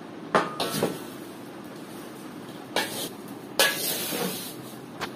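Metal ladle knocking and scraping against a large metal bowl while cut raw mango pieces and dry spices are stirred, with the mango pieces shifting. A handful of sharp clinks, the longest a scrape a little past halfway.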